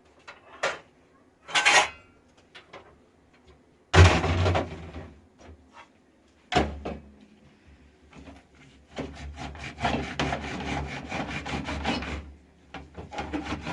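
A few sharp knocks and two heavier thuds, then about three seconds of fast, regular scraping strokes, some six or seven a second.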